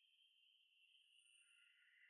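Near silence, with only a faint, steady insect trill; a second, lower trill joins about a second in.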